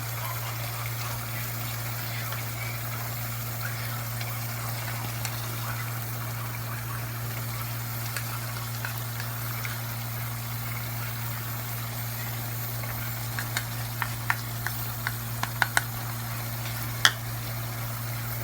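Chicken curry sizzling steadily in a pan over a constant low hum. In the second half, a run of sharp clicks and taps of a spoon against the pan as the masala is stirred in, the loudest a single clack near the end.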